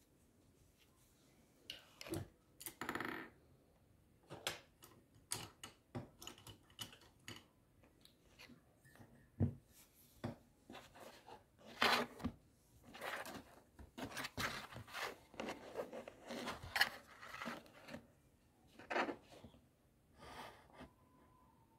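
Irregular handling noise close to the microphone: short clicks, rubs and brief scrapes, with a longer rustle a couple of seconds in and the busiest stretch in the middle.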